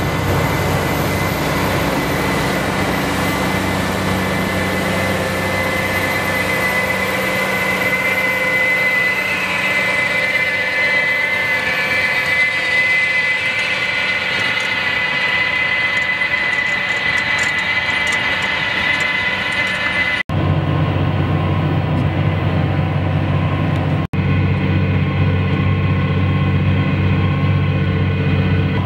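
Tractor engine and potato planter running steadily as they work a field. A high steady whine sits over the machine noise for most of it. About two-thirds of the way through, after two brief dropouts, the sound turns to a deeper engine hum.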